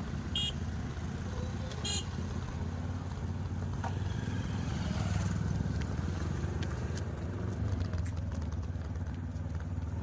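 A motor running steadily with a low hum, with two short high beeps early in the stretch.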